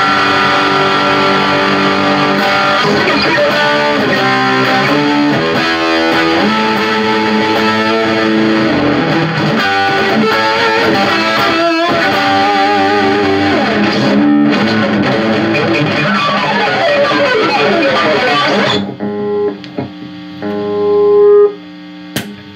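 Electric guitar played through an amplifier with distortion and effects: sustained notes with vibrato and bends and quicker runs, thinning to a few long held notes near the end with one loud swell before it fades.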